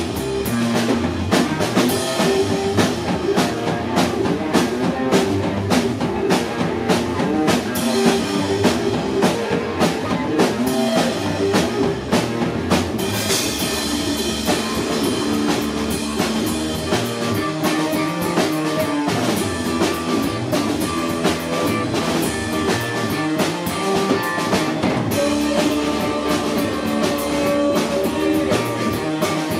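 Live rock band playing: a guitar over a full drum kit, with a burst of cymbal crash about thirteen seconds in.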